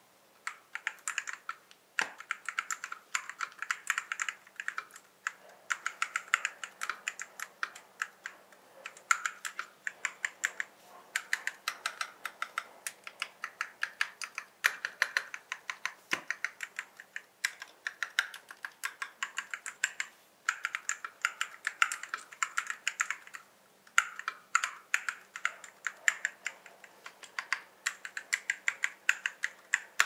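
Typing on an Epomaker TH96 gasket-mounted mechanical keyboard fitted with Comte semi-silent switches: quick, dense keystrokes in runs of a few seconds with short pauses between them.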